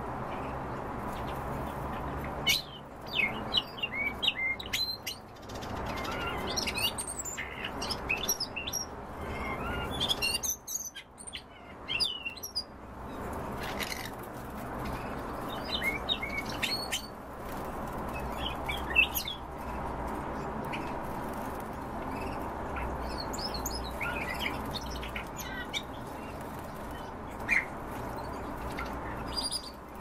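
Caged songbirds chirping and calling in short scattered bursts, several clusters of quick high notes, over a steady low hum.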